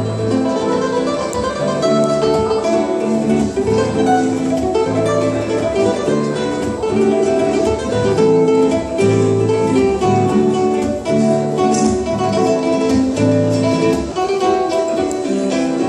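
Two acoustic guitars playing a fingerpicked duet, with bass notes under a melody line.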